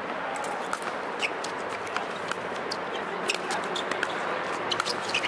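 Pickleball rally: a string of sharp, irregular pops as paddles strike the plastic ball, over a steady background hiss.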